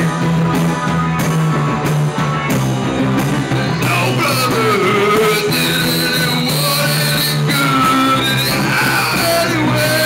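Live band music played loudly, with a man singing into a microphone over sustained low notes.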